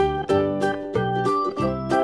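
Instrumental background music: a light tune of evenly paced notes with a steady beat.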